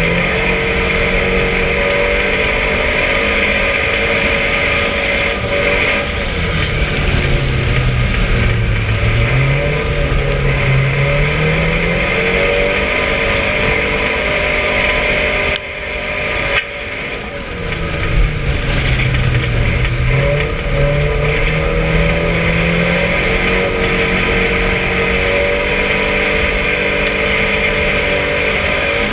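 Race car's engine heard from inside the cockpit at racing speed, its revs climbing and falling over and over as the car accelerates and backs off through the bends. About halfway through it briefly drops away as the driver lifts off, then picks up again.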